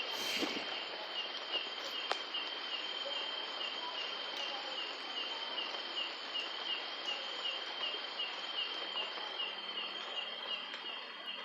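An insect chirping steadily, a high even tone pulsing about three times a second, over a steady background hiss.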